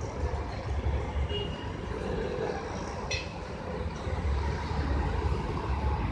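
Street traffic noise from a busy road: cars and auto-rickshaws passing in a steady hum, with a low uneven rumble underneath and one short sharp sound about three seconds in.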